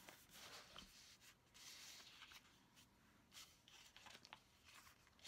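Near silence with faint rustling of paper sticker sheets and a few light taps and rubs of a fingertip pressing a sticker onto a planner page.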